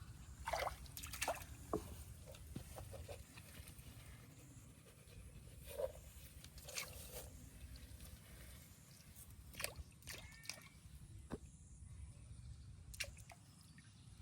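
Faint small splashes and sloshing of river water, with scattered light clicks over a low steady rumble.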